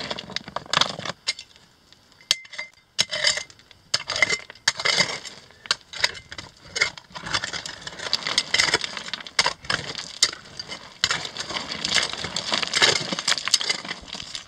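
A small pick striking and scraping into loose rocky mine waste, with stones clinking and rattling as they are pried loose. The strikes come irregularly, bunching to several a second at times.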